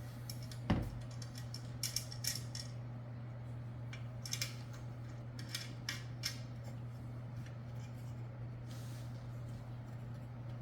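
Metal clinks and clicks of lawn mower parts and hardware being handled and fitted during assembly, with a dull thump about a second in.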